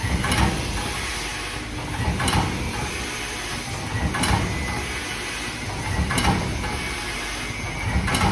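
A 10-lane liquid sachet packing machine running, with a steady mechanical noise and a short clatter of knocks repeating about every two seconds, once per machine cycle.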